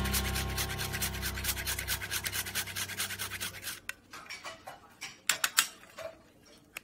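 Whole nutmeg rubbed on a small handheld metal nutmeg grater: rapid, even rasping strokes for about four seconds, then slower, scattered scrapes. A chime note rings and fades out over the first few seconds.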